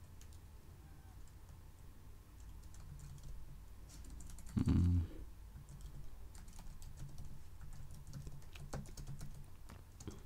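Typing on a computer keyboard: scattered runs of key clicks as a name is entered into a text field. About halfway through there is a brief, much louder low sound.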